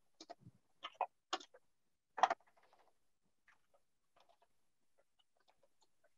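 Computer keyboard typing: a run of irregular key clicks, closer together and louder in the first couple of seconds, then fainter and more scattered.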